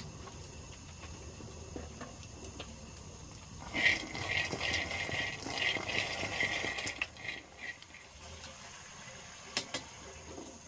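Water running and splashing for about three to four seconds, starting about four seconds in, with a few sharp knocks later on.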